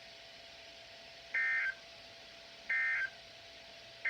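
Emergency Alert System end-of-message (EOM) signal: three short identical bursts of warbling two-tone SAME data, about a second and a half apart, marking the end of the alert. A faint steady hum sits underneath.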